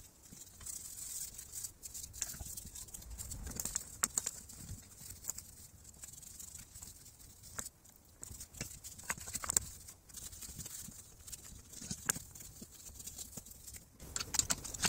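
A stiff bristle brush scrubbing the wet, oily engine casing of a scooter, with irregular scratchy strokes and scattered small knocks.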